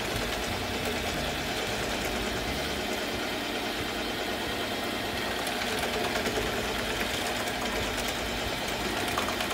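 Sunbeam stand mixer's motor running steadily, its dough hooks kneading stiff bread dough in the bowl.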